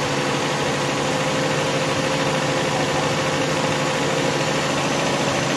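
Suzuki Cultus engine idling steadily with its Denso duet AC compressor engaged, a constant hum with a faint steady tone. The compressor is running with the low-side pressure down near 20 psi, close to the point where it trips off.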